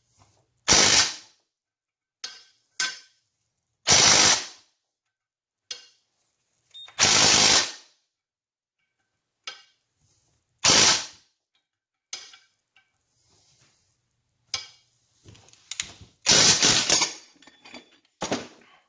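A power tool run in short bursts of about half a second to a second, five times, with small clicks and knocks of parts being handled between the bursts.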